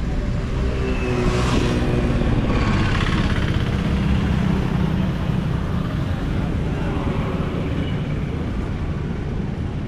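City road traffic: cars and motorcycles running by in a steady rumble, one passing close about a second and a half in.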